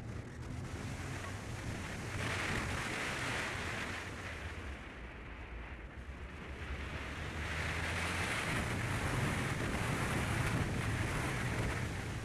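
Wind rushing over the microphone of a camera on a moving Ford Fiesta ST, over a low steady rumble of engine and tyres. The wind swells about two seconds in, eases, then swells again from about seven seconds until near the end.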